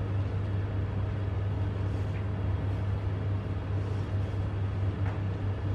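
Steady low hum and background room noise, with a couple of faint clicks about two and five seconds in.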